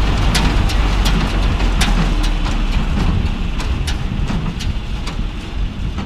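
John Deere tractor engine running under load as it drives a small square hay baler, with the baler's regular clacking knocks about two to three times a second over the steady engine drone.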